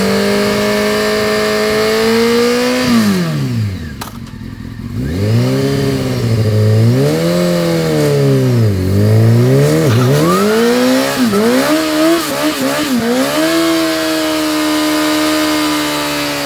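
Honda CBR600 sport bike's inline-four engine revving hard through a slip-on exhaust while the rear tyre spins against the pavement in a stationary burnout. The revs are held high, drop off briefly about three seconds in, rise and fall several times, then hold high again near the end.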